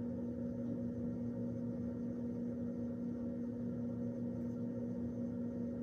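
A steady low hum with an even hiss underneath, holding one unchanging pitch.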